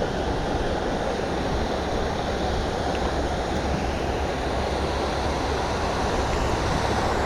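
Steady rushing of water from a small waterfall, an even noise that does not change.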